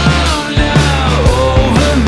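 Loud background rock music with a steady drum beat and a lead line that bends up and down in pitch.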